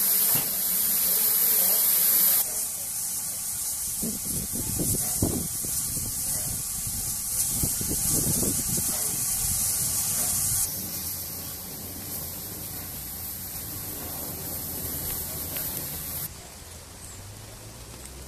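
Steady hiss of steam escaping from standing USATC S160 2-8-0 steam locomotives. It steps down in level a few times and drops much quieter near the end, with some low rumbles in the middle.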